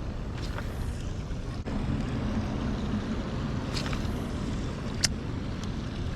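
Steady rush of river water with wind on the microphone, broken by a few short, sharp ticks.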